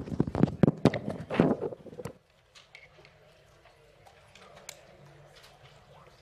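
Close, rapid clatter of knocks and clicks for about two seconds, typical of things being handled right by the microphone, then faint scattered taps.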